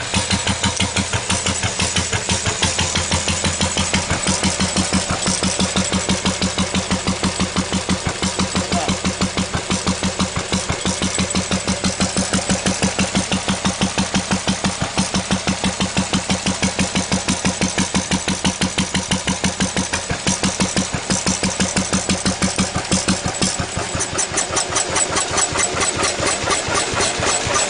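Lister D single-cylinder stationary engine running steadily with a rapid, even exhaust beat.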